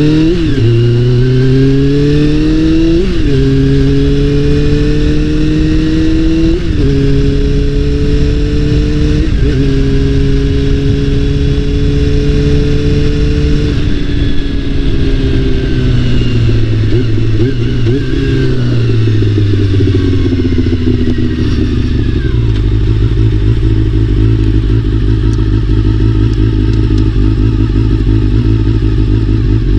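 Honda CBR400RR's inline-four engine under way: it climbs in pitch and drops back at each upshift about every three seconds, holds a steady pitch, then falls in steps as the bike slows and settles into an even run.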